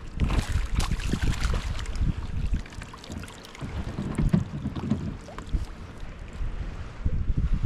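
Wind buffeting the camera microphone on a kayak on open water, a gusty low rumble, with a patch of water hiss and small clicks in the first couple of seconds.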